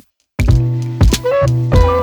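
Instrumental music with a bass line, drum hits and sustained melodic notes, cutting in after a brief moment of silence at the start.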